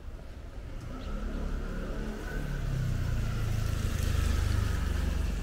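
A motor vehicle passing close by on a wet street: its engine and tyre hiss grow louder from about a second in and are loudest near the end.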